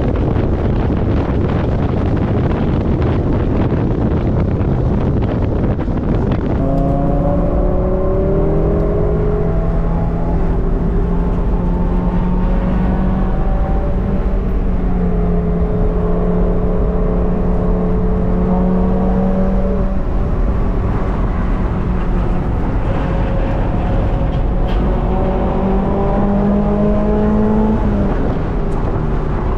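Open-top Toyota MR2 Spyder driving at speed. For the first six seconds there is only wind rush and road noise. Then the engine note comes through, climbing slowly in pitch and dropping back sharply twice, about two-thirds of the way in and near the end, as the car pulls and shifts up.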